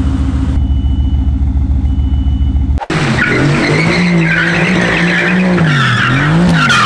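Mercedes-AMG GT S twin-turbo V8 running with a steady low rumble. After an abrupt break about three seconds in, the engine revs up and down as the car drifts, its tyres squealing.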